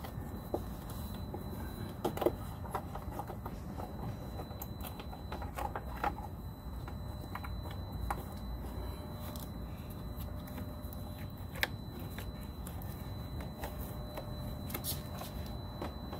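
Scattered small clicks, taps and rustles of wiring and plastic trim being handled inside a motorcycle's fairing, over a steady low background rumble and a faint steady high tone.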